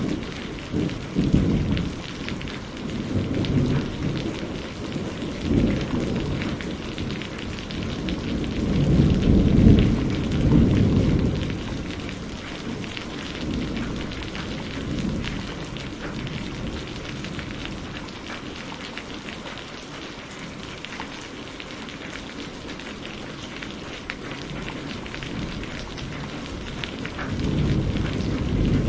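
Steady rain with thunder rumbling: a long rolling peal builds and fades in the first half, and another rumble rises near the end.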